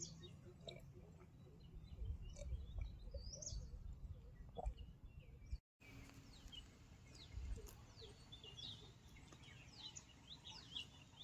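Faint birdsong: several birds calling with short chirps and quick falling whistles, over a low rumble. The sound drops out completely for a moment a little past halfway.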